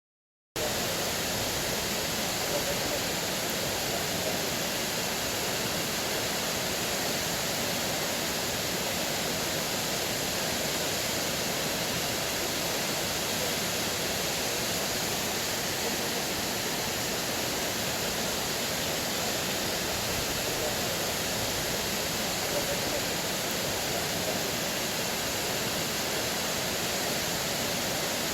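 Waterfall: a steady rush of falling water that starts suddenly about half a second in and holds even throughout.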